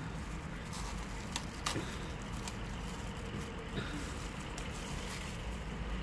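Steady low vehicle rumble heard inside a car's cabin, with a few faint clicks and smacks of chewing food.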